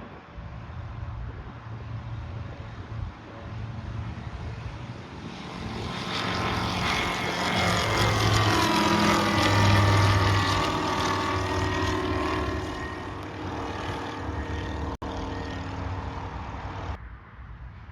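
Sling 2 light aircraft's propeller and engine passing by, swelling to its loudest midway and then falling away, with a falling pitch as it goes past. The engine's low hum stays under it, and the sound drops off sharply near the end.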